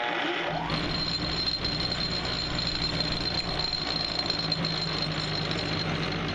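Bench buffer motor spinning a gray 3M-style wheel held in a drill chuck on its shaft, with no work against it. The motor comes up to speed with a rising whine in the first second, then runs steadily with a high whine over a low hum.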